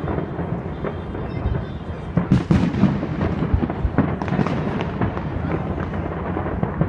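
Aerial firework shells bursting one after another, a continuous run of overlapping booms and crackles, with the sharpest bangs about two and a half seconds in and again at about four seconds.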